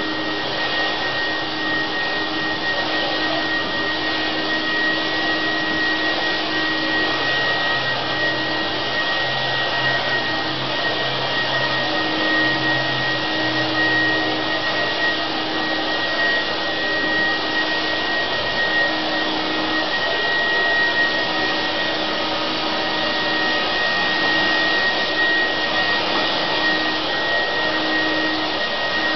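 A motor-driven machine running steadily: an even rushing noise with a constant high whine, and a low hum that comes and goes.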